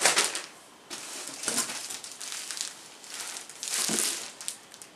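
Plastic packaging bags around folded T-shirts crinkling and rustling as they are handled, in several short bursts, the loudest right at the start.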